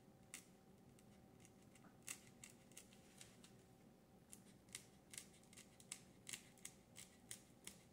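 X-Acto craft knife blade cutting through a polyethylene foam pool noodle, working around a traced circle: faint, crisp ticks that come irregularly, about two or three a second from about two seconds in.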